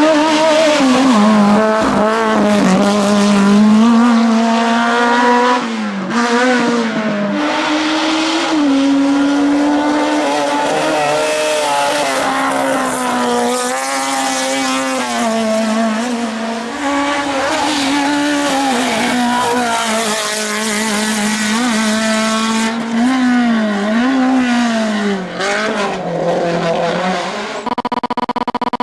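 Race-prepared Citroën AX hill-climb car's high-revving engine, driven hard: the pitch climbs and drops again and again through gear changes and lifts. Near the end the engine sound cuts out and gives way to music.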